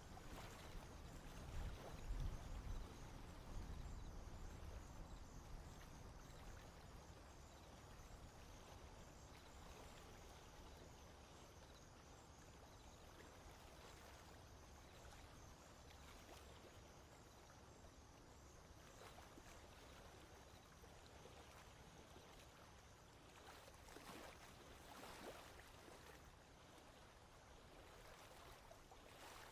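Near silence: faint outdoor background noise, with a low rumble in the first few seconds and a few faint soft knocks near the end.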